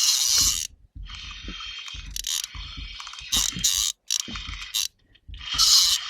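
Fishing reel's drag buzzing out in repeated bursts of rapid clicking as a hooked bass runs and pulls line against it.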